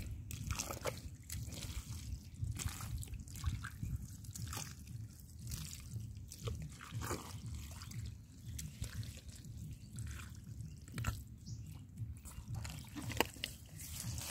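Hands and bare feet squelching and splashing in wet, waterlogged mud: a string of irregular short wet squishes and drips over a low steady rumble.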